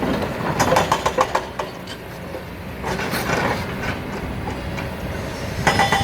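Heavy machinery running at a rock quarry, with a steady engine drone. Two bursts of rapid clanking and clattering cut through it, the second starting near the end.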